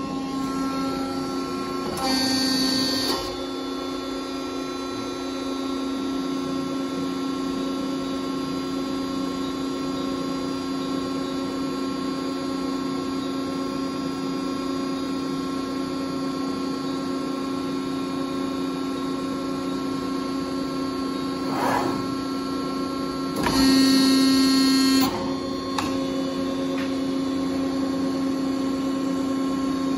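Hydraulic power unit of a 2000 Accurpress 7606 60-ton CNC press brake running with a steady hum. Twice, once about two seconds in and again near three-quarters of the way through, it turns louder and higher-pitched for a second or so, with a short click just before the second time.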